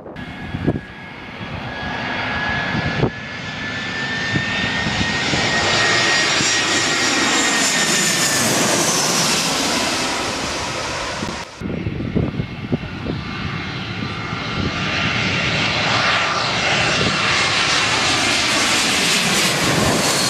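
Airbus A320 jet airliners on final approach passing low overhead, one after another, with a steady whine that drops in pitch as each goes by. There is a cut between the two passes about eleven and a half seconds in.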